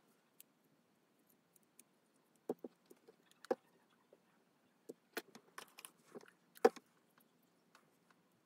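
Light plastic clicks and taps from handling a model locomotive's motor truck and rubbing it with a cotton swab, coming in small clusters, with one sharper knock late on.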